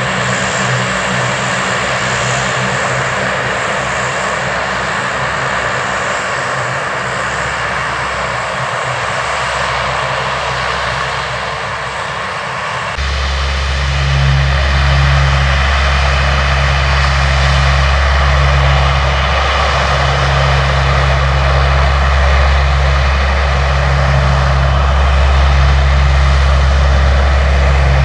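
Lockheed C-130 Hercules's four Allison T56 turboprop engines running with the propellers turning as the aircraft moves on the runway. About halfway through the sound changes abruptly to a louder, deeper drone with a pulsing low hum.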